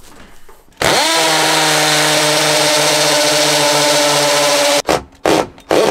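Cordless drill spinning up about a second in and running at a steady whine for about four seconds while drilling into the wall, then stopping suddenly, followed by two short bursts near the end.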